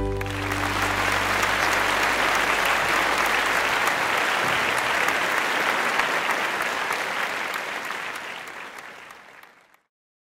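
Audience applauding steadily. A low note left over from the music dies away over the first few seconds, and the applause fades out near the end.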